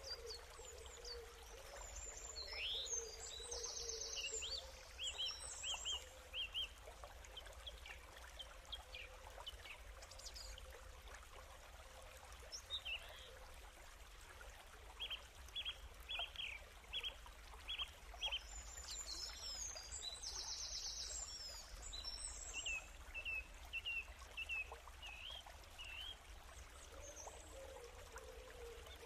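Birds chirping: short high chirps and trills come in clusters over a faint steady hiss. The same run of calls repeats about every sixteen seconds, like a looped nature-ambience track.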